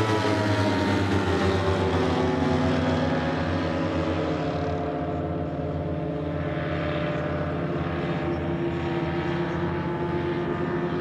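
Gas engines of a large-scale radio-controlled B-17 Flying Fortress running together with a steady propeller drone. Their pitch sinks slightly over the first few seconds, then holds.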